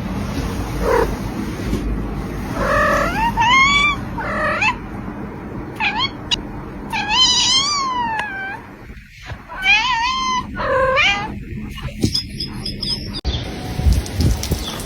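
A cat meowing: a string of drawn-out, wavering calls, the longest one near the middle rising and then falling in pitch.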